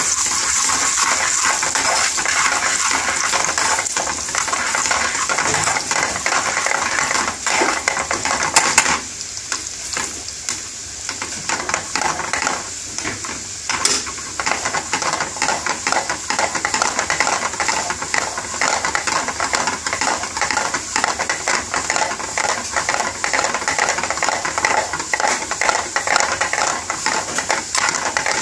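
Chopped garlic sizzling and crackling in hot vegetable oil in a metal frying pan, with a metal spoon scraping and clinking against the pan as it is stirred. The sizzle dips for a few seconds about nine seconds in, then picks up again.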